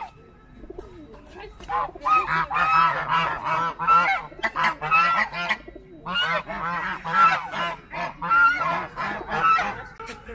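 Goose honking close by in rapid runs of loud calls, two bouts with a short pause about six seconds in.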